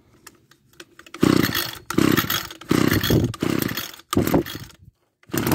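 Echo SRM-210 trimmer's two-stroke engine being pull-started, about four quick recoil-cord pulls in a row followed by another near the end, with the engine popping off briefly on carburetor cleaner sprayed into the cylinder: the sign that it has spark and compression.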